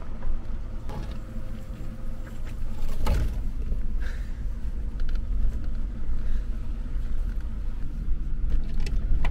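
1999 Chevy Astro/GMC Safari van's 4.3-litre V6 engine running at low speed as the van creeps over a rocky trail, with scattered clicks and knocks from the tyres and body on the rocks and a heavier knock about three seconds in.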